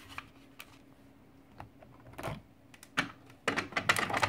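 Light plastic clicks and clacks of a Fargo HDP film cassette being handled and slid into the card printer, scattered at first with a quick run of clatter near the end. A faint steady hum sits underneath.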